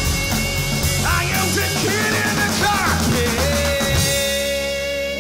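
A live rock band (drum kit, electric bass, acoustic guitar and violin, with a female singer) plays the close of a song. About four seconds in the drums stop and a final chord rings out under one long held note.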